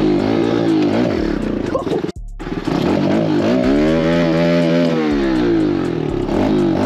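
Pit bike engine revving up and down under way, with one long rise and fall in pitch in the middle. The sound cuts out sharply for a moment about two seconds in.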